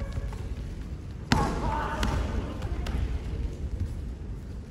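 Karate kumite sparring in a large sports hall: a sharp slap about a second in, followed at once by a loud shout (a fighter's kiai), then a couple of lighter taps, over the hall's steady low hum.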